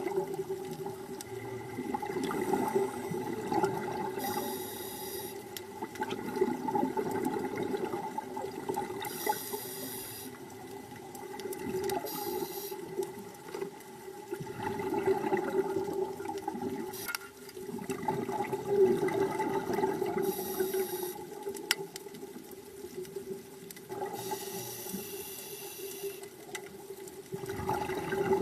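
Underwater sound of scuba breathing: short hissing inhalations through a regulator and gurgling swells of exhaled bubbles every few seconds, over a steady low hum.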